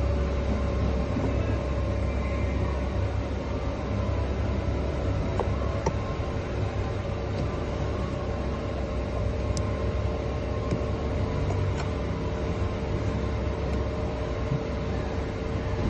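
A steady low mechanical rumble with a faint constant hum above it, unchanging throughout.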